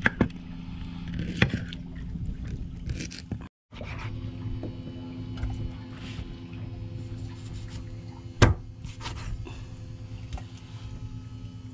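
Fishing boat's engine running with a steady low hum, with scattered knocks and scrapes on the boat; the sharpest knock comes about eight and a half seconds in, and the sound cuts out for a moment about three and a half seconds in.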